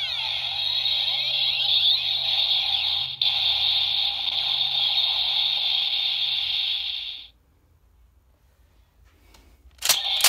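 Kamen Rider Ghost Driver toy belt playing its electronic sound effect from its built-in speaker, a dense, warbling sound with sweeping tones, while its eye lights up. The sound cuts off about seven seconds in. Near the end a few sharp plastic clicks come as the lever is worked, and the toy's sound starts again.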